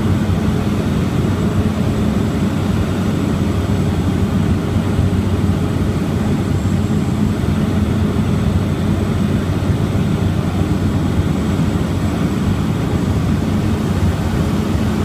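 Cabin noise of a Cessna 208 Caravan in flight: its single PT6A turboprop engine and propeller running steadily, a loud, even drone with a faint high whine above it, heard from inside the cabin.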